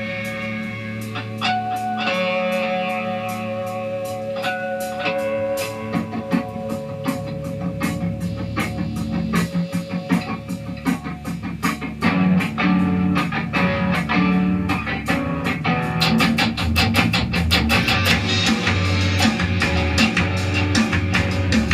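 Rock music on electric guitar with held, ringing notes. Drums and bass come in beneath it, and the playing grows louder about twelve seconds in and busier near the end.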